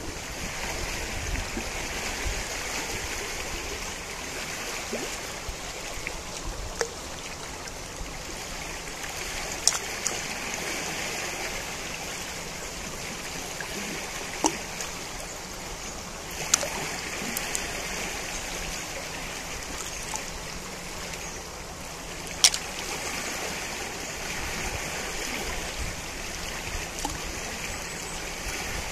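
Najerilla river flowing: a steady rush of running water, with a few sharp clicks standing out above it.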